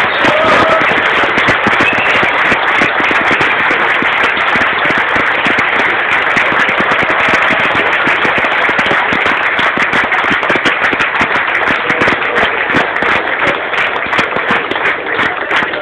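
A large crowd applauding: dense, steady clapping throughout.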